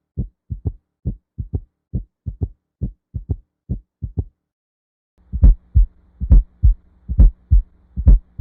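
Recorded heart sounds: lub-dub heartbeats in quick pairs, stopping a little after four seconds. After a short silence a second recording starts, with louder beats and a faint steady hum between them. Both serve as examples of abnormal heart sounds or murmurs.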